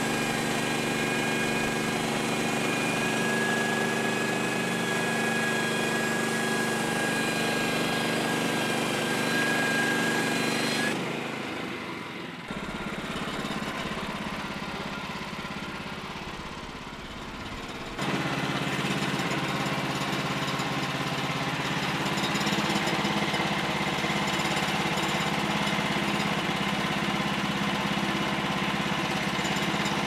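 Woodland Mills HM126 bandsaw mill running on its Kohler gasoline engine while the blade saws a board off a squared log, with a steady high whine over the engine for the first third. The sound drops abruptly to a quieter, duller level for several seconds near the middle, then comes back at full level.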